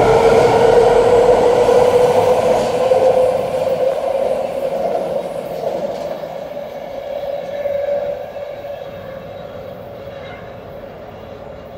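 BART Fleet of the Future train pulling out and moving away down the track: its electric traction motors give a steady whine that climbs slightly in pitch over the rumble of the wheels on the rails, fading steadily as the train draws off.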